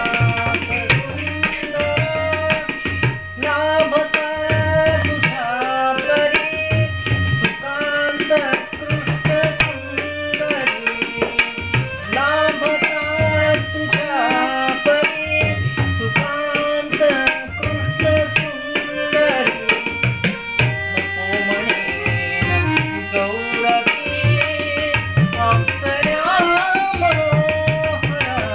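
Tabla playing a steady rhythmic accompaniment, with deep bass-drum strokes under sharper treble strokes, alongside a harmonium holding and moving through sustained notes. Over them a voice sings ornamented, gliding phrases of a Marathi natya sangit song.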